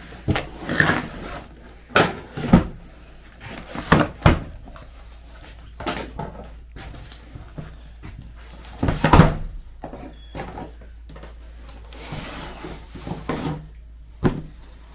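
A cardboard box and packaging around a folding solar panel being handled: scattered knocks, scrapes and rustles, with the loudest thump about nine seconds in.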